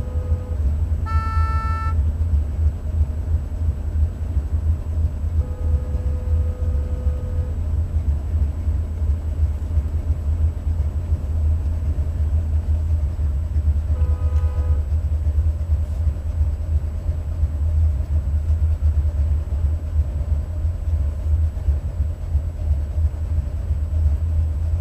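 Buick 455 Stage 1 V8 idling with a steady low rumble. Three short high-pitched toots cut in over it: one about a second in, a longer one a few seconds later, and a brief one about halfway through.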